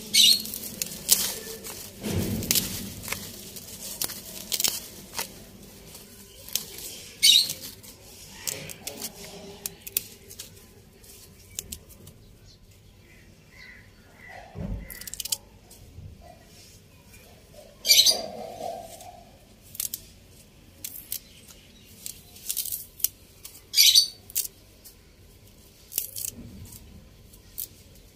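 Fresh mooli (white radish) greens being handled and torn by hand: rustling leaves and sharp snaps of crisp stalks at irregular intervals, with a few duller knocks.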